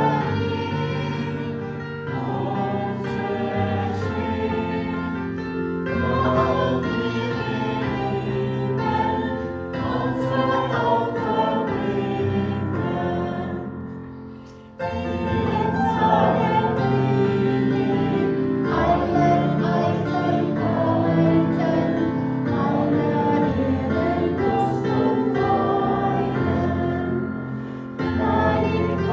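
A hymn sung by a group of voices with electric keyboard accompaniment, the keyboard player also singing. About halfway through the music fades, then starts again abruptly.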